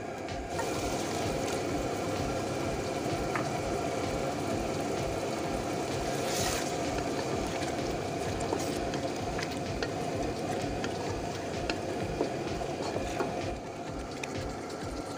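Wooden spatula stirring beef pieces in thick gravy in a nonstick wok: a steady wash of stirring and cooking noise with small knocks of the spatula against the pan. The stirring stops near the end.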